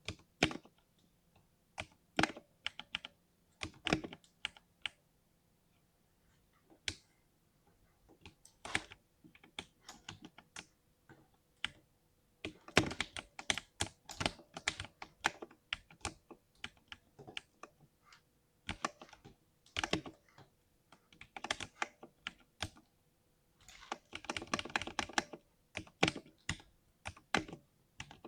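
Typing on a 60% mechanical keyboard, with deep "thock" keystrokes coming in irregular runs. There is a sparse lull about a quarter of the way in and a rapid burst of fast typing near the end.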